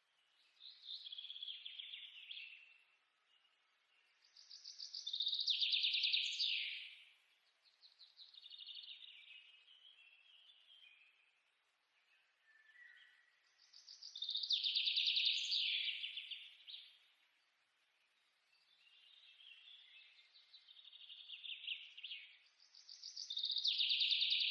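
Birdsong: repeated high trilling phrases that swell and fade every few seconds, the louder phrases coming roughly every nine seconds with quieter ones between.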